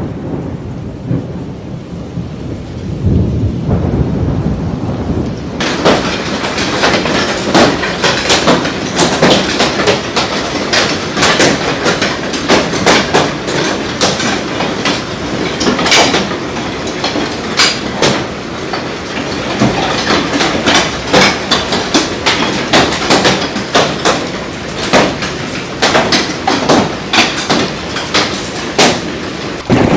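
Hailstorm: a low rumble with rain for the first few seconds, then, after an abrupt change about five seconds in, hailstones striking hard surfaces in a dense, irregular clatter of sharp knocks over the roar of the storm.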